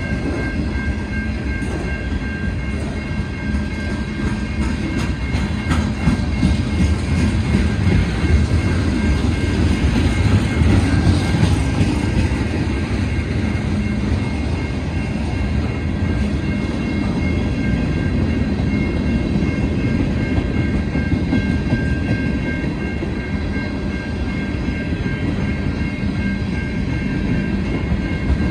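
Freight train cars, autoracks and then tank cars, rolling steadily past at close range. Their wheels make a continuous rumble with clickety-clack over the rail joints, and steady thin high tones sit above it.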